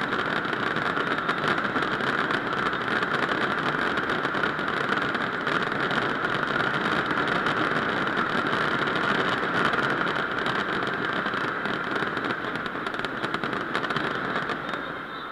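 A huge stadium crowd and massed performers cheering and applauding as one continuous roar. It starts suddenly and fades away near the end.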